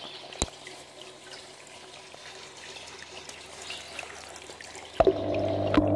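Water trickling and dripping as a camera is moved through a small planted bathtub pond, with scattered clicks and a sharp knock about half a second in. About five seconds in a louder, steady low hum starts.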